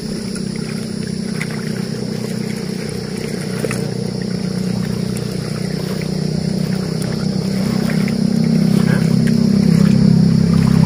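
Motorboat engine running steadily on the lake, its low hum growing louder over the last few seconds.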